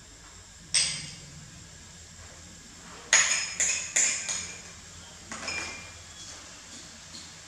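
Metal spoon clinking against a small ceramic bowl and the cooking pot while ingredients are scraped into the pot: one sharp clink about a second in, a quick run of four clinks around three to four seconds in, then a couple of lighter ones.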